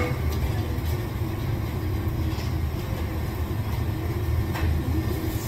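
Steady low rumble of a commercial kitchen's exhaust hood fans running, with a faint click near the end.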